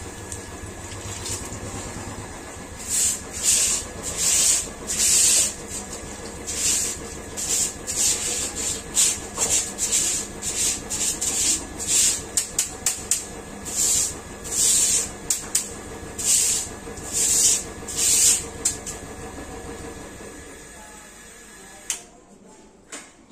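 Stick broom sweeping a marble-tiled floor: short, brisk, scratchy strokes, one to two a second, that stop a few seconds before the end.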